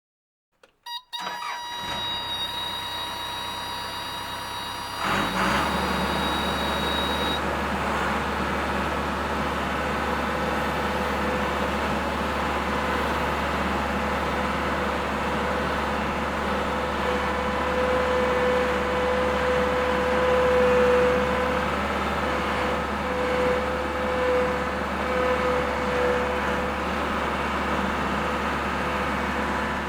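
Bobcat loader's engine: a few clicks about a second in and a quieter steady sound, then about five seconds in the engine note steps up suddenly to a louder, deeper steady running that holds until it cuts off at the end.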